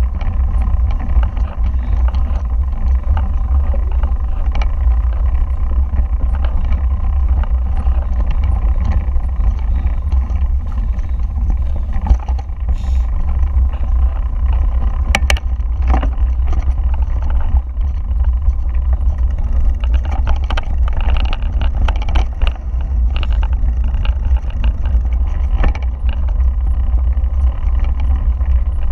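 Heavy wind rumble on the action camera's microphone during a fast mountain-bike descent of a dirt trail. The bike's frame and parts rattle, with scattered clicks and knocks over rough ground that come thickest in the second half.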